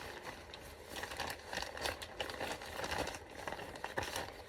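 Crinkling and rustling as a raincoat is handled, a dense run of small irregular crackles.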